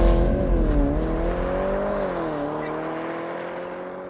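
Intro sound effect of a car engine humming, its pitch dipping slightly twice, fading out steadily.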